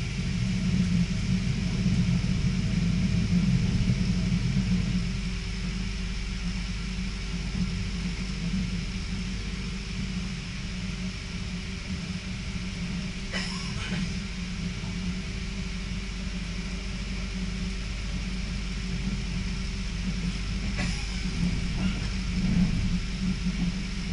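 Passenger train running on the line, heard from inside the carriage: a steady low rumble with a faint steady hum, louder for the first five seconds or so.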